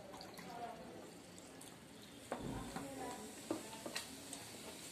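Tableware at a meal: a few light knocks of a mug and cutlery against the table and plates, with soft, crackly eating noises between them.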